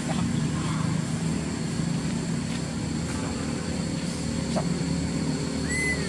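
A steady low engine drone, with a brief high chirp near the end.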